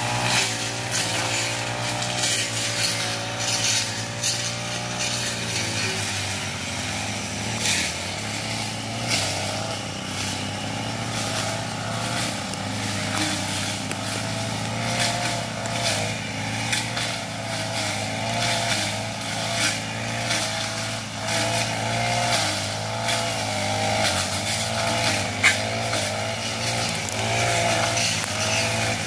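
Backpack brush cutters running, their engine pitch wavering up and down as the blades cut through grass and undergrowth, with frequent short ticks of the blades striking vegetation.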